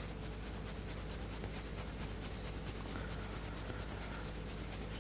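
Fingertips rubbing briskly over the skin of the sternum, stimulating the diaphragm's neurolymphatic reflex points: a faint, steady scratchy friction over a low room hum.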